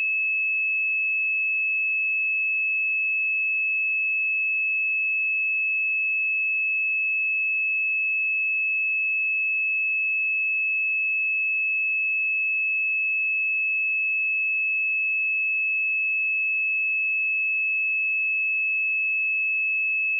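A pure 2597 Hz sine-wave test tone, held steady at one pitch and level with nothing else in it.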